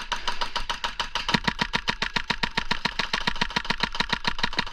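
Airsoft electric gun firing a long burst on full auto: a steady run of rapid shots at about ten a second, unbroken.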